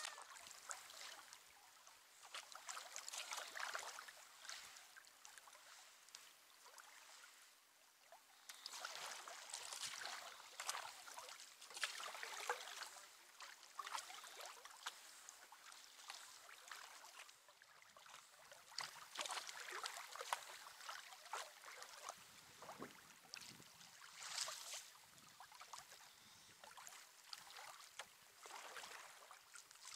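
Faint sound of kayak paddle strokes: the blades dip in, pull through and lift out of calm water, with splashes and drips that swell and fade every few seconds.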